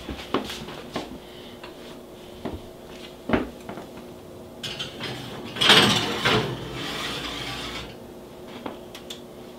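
A ceramic casserole dish handled at the wire rack of an open oven: a few light knocks, then a couple of seconds of scraping and rattling as the dish is slid onto the metal rack, loudest about six seconds in.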